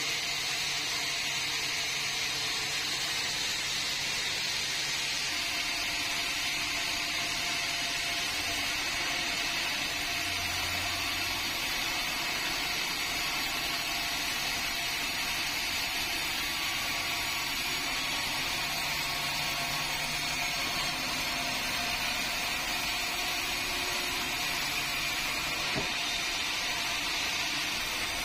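Band sawmill running steadily while its blade saws lengthwise through a meranti log.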